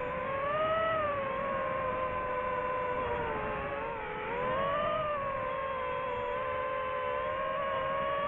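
DJI FPV drone's motors and propellers whining in fast flight, the pitch rising and falling with the throttle, with a dip about four seconds in and a quick rise after it.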